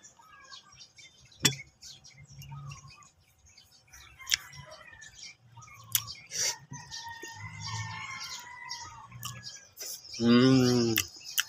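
Small birds chirping and twittering in the background while a man eats with his hands, with a few sharp mouth clicks and smacks. Near the end comes one short, loud, low hum from him, about a second long.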